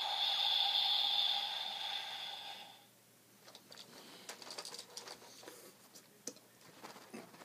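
Kamen Rider Build Driver toy belt playing an electronic sound effect through its small speaker: a steady high tone that fades and stops about three seconds in. After that come light clicks and rattles of the hard plastic toy being handled.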